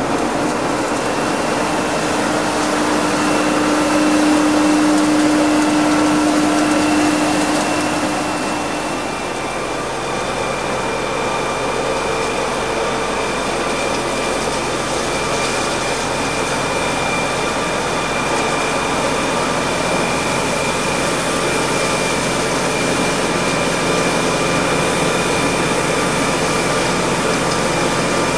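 Scarab Merlin XP truck-mounted vacuum road sweeper running while it sweeps: steady engine and suction-fan noise with a high whine, over its rotating gutter brooms brushing grit. The pitch of the whine changes about nine seconds in.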